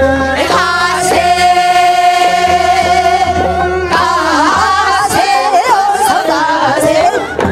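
A group of women singing a Korean folk song (minyo) together into microphones, with accompaniment. About a second in they hold one long, steady note, and from about four seconds in the melody turns wavering and ornamented.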